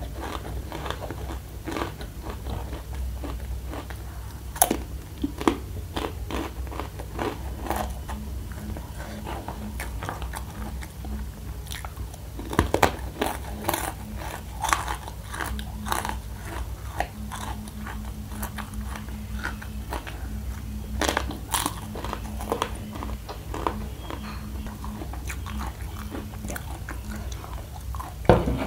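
Close-miked crunching and chewing of crispy fried macaroni snack pieces, with repeated sharp crunches and a few louder bites about 5, 13, 21 and 28 seconds in, over a low steady hum.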